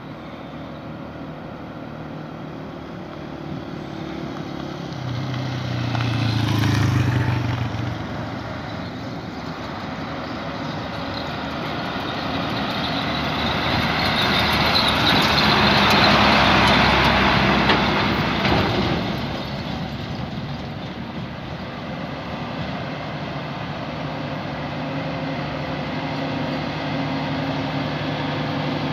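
Heavy trucks driving past on a dirt road. A motorcycle passes about six seconds in. A truck then goes by close, its engine and its tyres on the gravel loudest around the middle, and another truck's engine drones as it approaches near the end.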